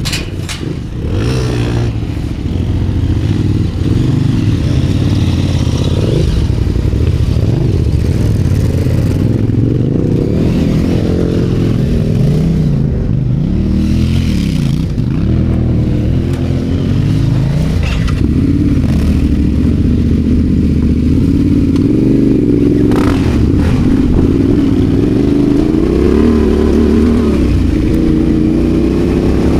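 Adventure motorcycle engine running while riding off road, its revs rising and falling again and again, with a few brief clattering knocks.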